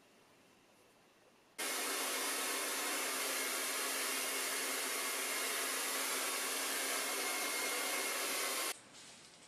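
Handheld hair dryer blowing on wet hair, a steady, even rush of air that switches on suddenly about one and a half seconds in and cuts off abruptly near the end.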